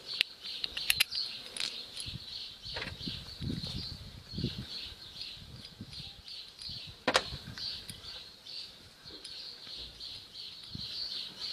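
Hands working on clutch-cable fittings: a few sharp metallic clicks, the loudest about a second in and again about seven seconds in, with soft handling rustle between them. A steady high pulsing chirp runs underneath.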